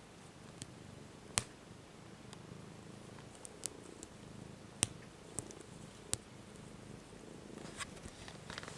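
Domestic cat purring steadily close to the microphone, with a few sharp clicks at about one and a half, five and six seconds in and some soft rustling near the end.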